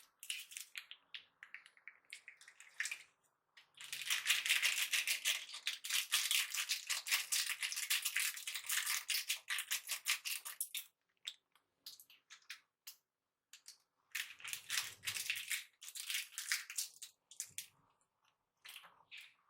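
Dense, granular rattling in two long bursts, quick clicks running together.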